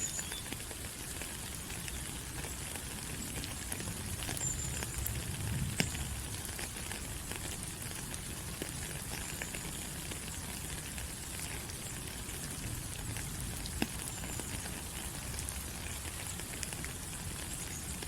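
Rain falling on rainforest leaves: a steady hiss of rain dotted with scattered louder drops, and a few brief high chirps.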